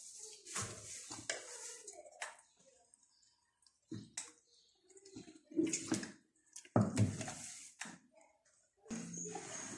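Hands squeezing and rubbing a raw whole chicken in a wet herb-and-spice chermoula marinade in a pot: wet squelching and slapping in irregular bursts, with short silent gaps.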